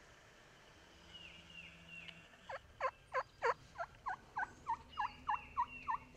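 Wild turkey yelping. A few soft notes come first, then a loud run of about a dozen yelps at roughly three a second.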